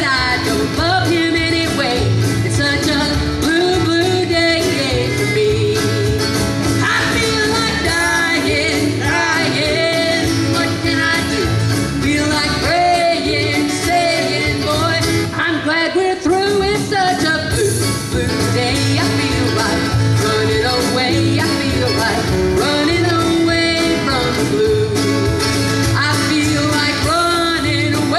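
Live country band playing: a woman and a man singing over strummed acoustic guitar, mandolin, lead guitar and drums, with a steady beat.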